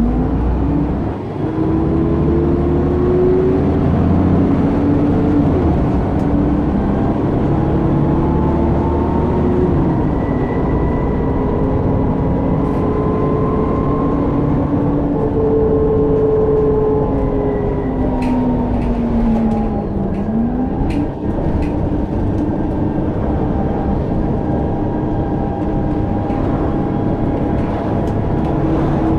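Alexander Dennis Trident double-decker bus running, heard from inside on the upper deck. The engine and driveline drone along with whines that rise and fall in pitch as the bus speeds up and slows. The whine dips sharply and climbs again about two-thirds of the way through.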